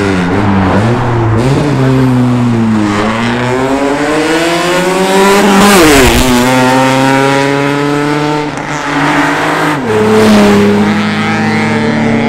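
A car's engine accelerating hard, its pitch climbing and then dropping sharply at two gear changes, about six and ten seconds in.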